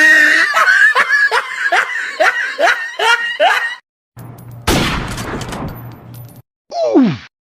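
A run of meme sound-effect clips. First a laugh in quick repeated pulses for nearly four seconds, then a noisy blast over a low hum, then a short tone sliding steeply down in pitch.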